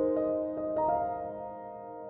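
Background piano music: a few held keyboard notes that fade down near the end.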